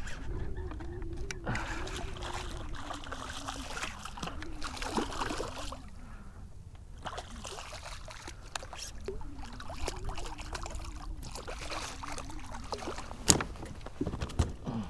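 Water lapping and trickling around a kayak hull, with a wavering low hum that comes and goes, and one sharp click a little before the end.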